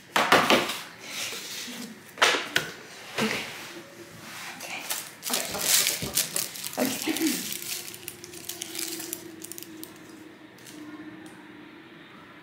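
Several sharp clinks and clatters of small decorating tools and dishes being picked up and set down on a work table, then a steady low held tone lasting a few seconds.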